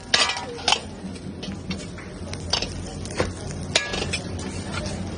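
A steel ladle clanking and scraping against a large steel wok as fried rice is tossed, with several sharp metal-on-metal strikes at irregular intervals.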